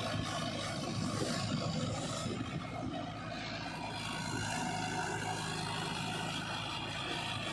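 Mahindra Arjun 555 tractor's diesel engine running steadily under load, driving a rotary tiller that churns through flooded paddy mud.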